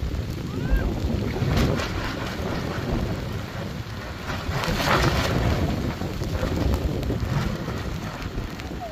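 Storm wind gusting and buffeting the microphone: a heavy rushing noise that swells in gusts, strongest about five seconds in.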